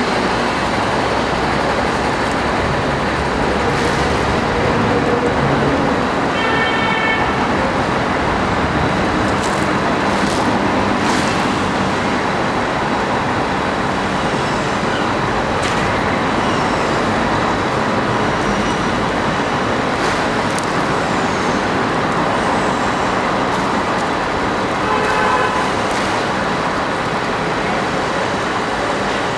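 Steady loud noise of motor vehicle engines and road traffic. Two brief pitched tones stand out, about seven seconds in and again a few seconds before the end.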